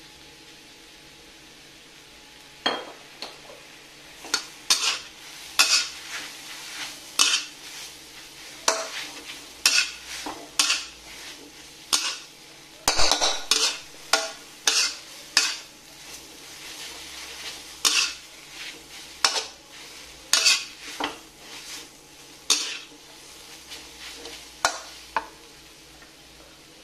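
A metal spatula scraping and clanking against a wok as instant noodles are stir-fried: a sharp stroke about once a second over a faint steady sizzle. The strokes start a few seconds in.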